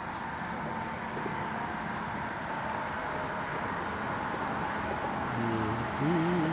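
Steady hum of distant road traffic. About five and a half seconds in, a short wavering pitched call or tone joins it.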